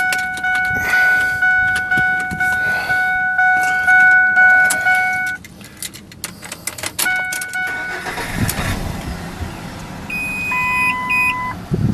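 Ford F150's 4.2-litre V6 being started: a steady in-cab warning chime and key clicks, then the starter cranks and the engine catches about eight seconds in and settles into a low idle. A second, shorter chime of a different pitch sounds near the end.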